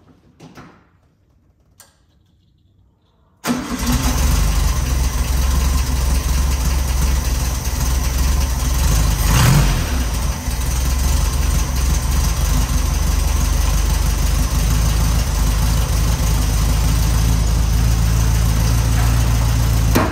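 1970 Volkswagen Beetle's air-cooled flat-four engine starting up suddenly a little over three seconds in, then running at a steady idle, briefly louder about halfway through.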